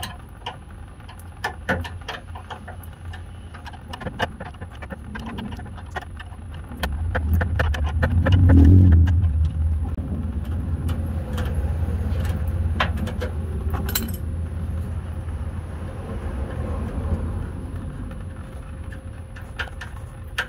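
Wrench and metal fuel-line fittings clinking irregularly as the fuel filter is unbolted from under a Toyota Tundra. A low rumble swells about seven seconds in, is the loudest sound soon after, and carries on more weakly.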